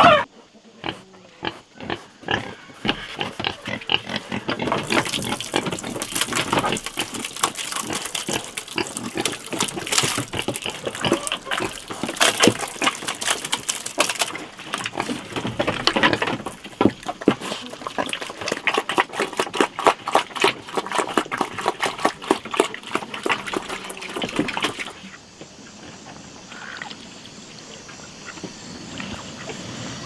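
Pigs eating wet grain mash from a trough: a fast, dense run of chewing and slurping smacks. It cuts off suddenly near the end, leaving a quieter outdoor background.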